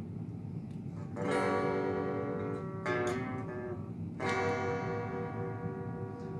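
Guitar chords strummed three times, about a second, three seconds and four seconds in, each left ringing.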